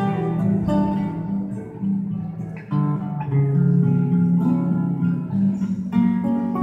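Acoustic guitars playing an instrumental passage: a picked melody of single notes over held chords.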